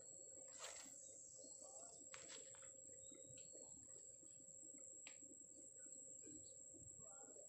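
Near silence: faint outdoor ambience with a few soft bird chirps and a steady, faint high-pitched whine.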